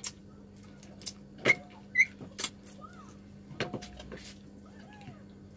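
Sharp clicks and clinks of crab being picked apart by hand over a metal bowl: shell cracking and pieces knocking against the bowl. The two loudest come about one and a half and two seconds in, each with a short ring.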